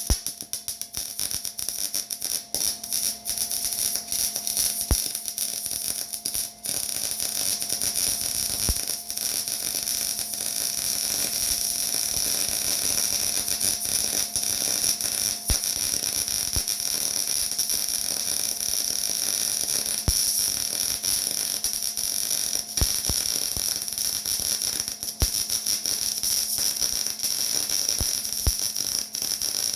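Electric arc welding on steel: a steady, crackling sizzle from the welding arc laying a bead, full of small sharp pops, with a faint steady hum underneath.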